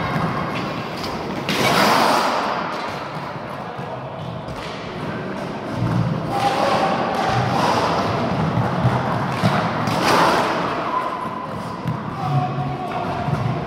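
Roller hockey play: quad-skate wheels on the floor and repeated thuds and knocks of the ball, sticks and boards, with voices calling out now and then.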